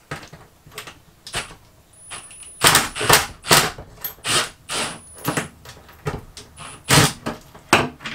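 A hard probe on a handheld tool knocking and scraping against a wooden cabinet top and ceiling panel. It makes a dozen or so irregular knocks and scrapes, loudest about three seconds in and again near the end.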